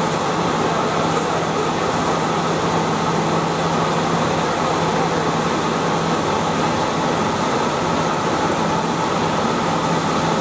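Kraft-paper slitting and rewinding machine running steadily: an even mechanical hum with one constant low tone.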